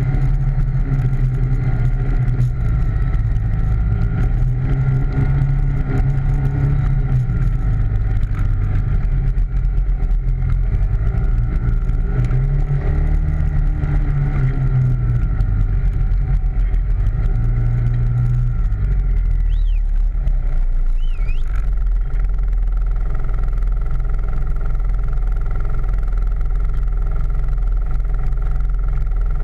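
ATV engine running with the throttle varied, its pitch rising and falling for the first twenty seconds or so, then holding steady.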